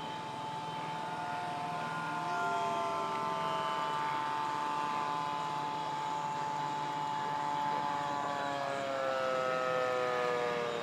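Several radio-controlled model airplanes buzzing overhead, their motors and propellers making overlapping high whines. One whine falls steadily in pitch over the last few seconds as that plane flies past.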